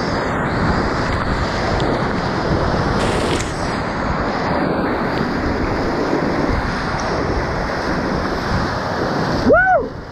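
Loud, steady roar of a big whitewater rapid, with waves crashing and splashing over the bow of the packraft. Near the end a brief rising-then-falling gurgle is heard, and the sound goes muffled and quieter.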